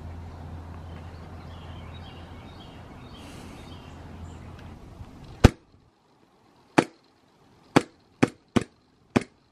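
Glock 42 green-gas blowback airsoft pistol firing six shots, each a sharp crack, the first about halfway through and the rest following in a quickening string, the last few under half a second apart.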